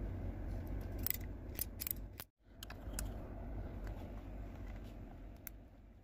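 Hand RJ45 crimping tool being squeezed shut on a CAT6 connector, giving a few sharp clicks about a second in. After a brief dropout, scattered lighter clicks of the cable and plugs being handled follow, over a steady low hum.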